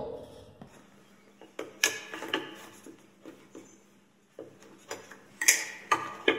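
Scissors snipping through the seal sticker on a cardboard smartphone box. Scattered sharp snips, clicks and taps from the cutting and the box being handled.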